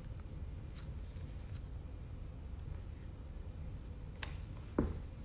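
Faint scratching and rustling over a low steady room hum, with a few soft ticks and one sharper tap or knock near the end.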